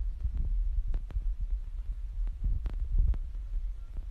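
Low rumbling with scattered light clicks and taps, at irregular intervals, from a cat clambering on a wire birdcage.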